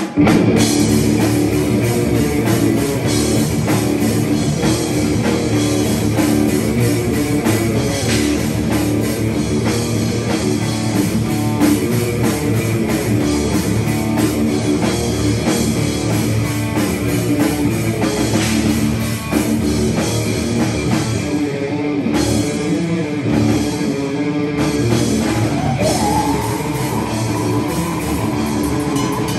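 A rock band playing live in a room: electric guitar, bass guitar and a drum kit playing together without a break.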